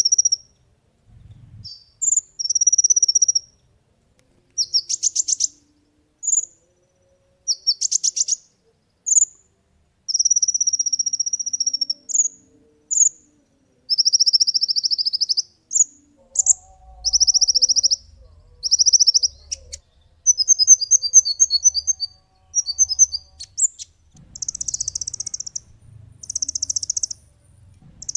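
Kolibri ninja sunbird singing loud, high-pitched, rapid trilled phrases of a second or two each, broken by short pauses, with a few brief chip notes between them.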